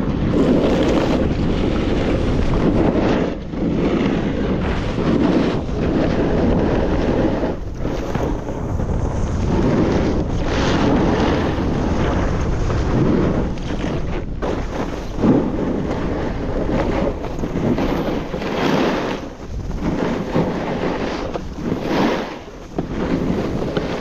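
Wind rushing over the microphone of a camera carried by a snowboarder riding down a groomed run, mixed with the board's edges hissing and scraping over the snow; the noise surges and eases every second or two as he turns.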